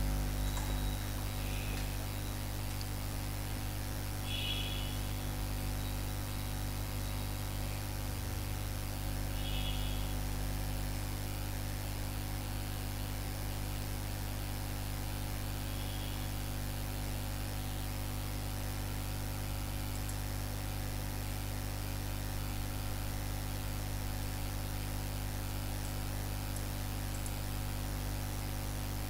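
Steady electrical mains hum with a layer of hiss from the recording chain; no other sound stands out.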